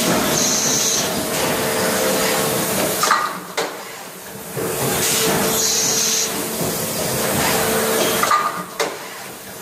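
Injection moulding machine with a side-entry take-out robot running its cycle. There is a steady hum under hissing air, short sharp air blasts, and knocks as the mould and robot move. The pattern repeats about every five seconds.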